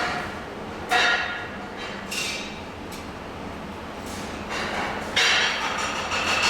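Several metallic knocks and clinks, a few seconds apart, the loudest about five seconds in with a longer rattling ring, over a steady low hum.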